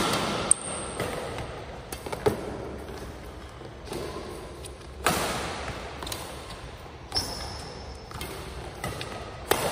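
Badminton rackets striking a shuttlecock back and forth in a singles rally, a sharp hit about every one to two seconds that echoes around the hall, with a brief squeak or two of shoes on the court.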